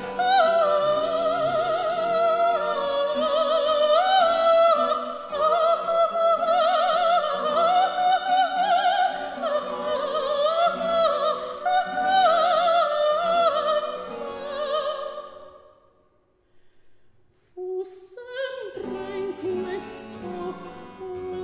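Mezzo-soprano singing an 18th-century opera aria with a wide vibrato, accompanied by a small baroque ensemble. Her line fades out about fifteen seconds in, there is a short hush, and the instruments come back in.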